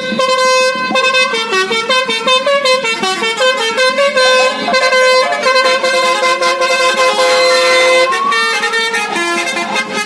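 Basuri musical air horn playing a tune: a quick run of loud horn notes stepping up and down in pitch, sometimes two notes sounding together, with a rising slide in the second half.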